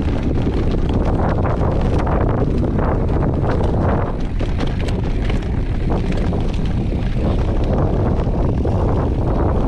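Wind buffeting the microphone of a camera mounted on a moving mountain bike, with frequent clicks and rattles from the bike over rough ground.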